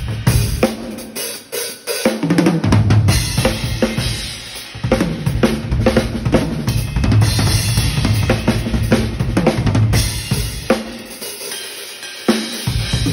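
Drum kit played for a sound check: bass drum, snare and cymbals hit in quick, busy patterns, with brief breaks about two seconds in and near the end.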